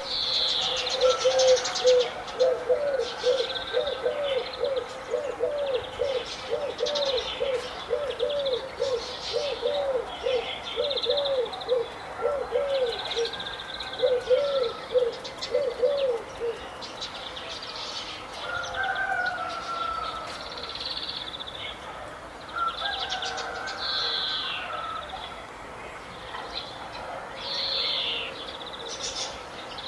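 Several birds calling together: high chirps and twitters throughout, over a low call repeated at a steady pace of about two to three notes a second that stops a little past halfway.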